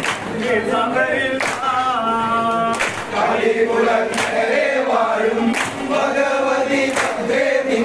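A group singing a kaikottikkali song in unison, with the dancers clapping their hands together in time, a sharp clap about every second and a half.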